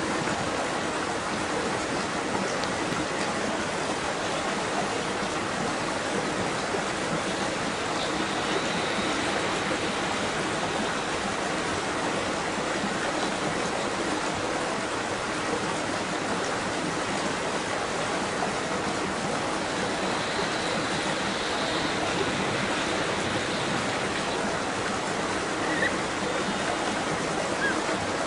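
A steady rush of flowing water, even and unbroken, with a few faint bird chirps over it.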